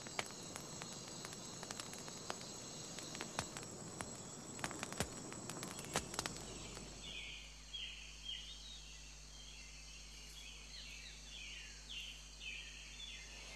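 Faint tropical rainforest insect chorus with a steady high drone. A scatter of clicks and crackles runs through the first half; in the second half a run of short falling chirps repeats about twice a second.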